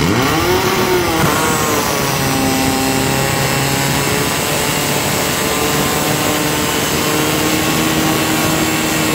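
Portable fire pump's engine revs up sharply at the start, then runs at high, steady speed under full throttle while pumping water through the hoses.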